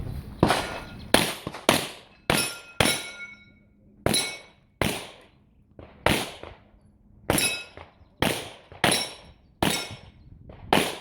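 A handgun fired in a competition stage: about thirteen sharp shots, singly and in quick pairs, with short pauses between strings. A brief metallic ring trails several of the shots.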